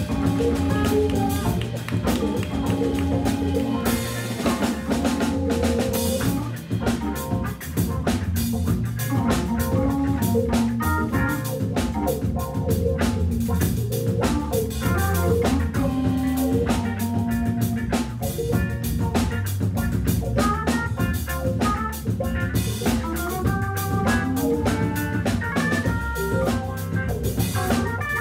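Organ trio playing a funk tune live: Hammond B3 organ, hollow-body electric guitar and drum kit together, with the drums prominent.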